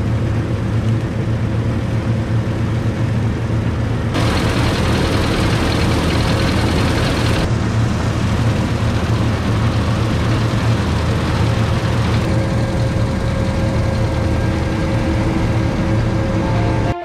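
Diesel engine of heavy harvest machinery running steadily under load, a constant low drone with a faint steady whine above it. A hissing rush joins about four seconds in and drops away a few seconds later.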